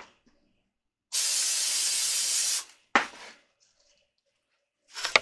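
Aerosol cooking spray released in one steady hiss lasting about a second and a half, followed shortly by a single sharp knock.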